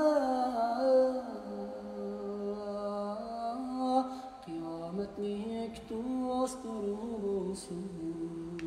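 Slow song: a single voice holds long notes that step down and up in pitch, with no clear words.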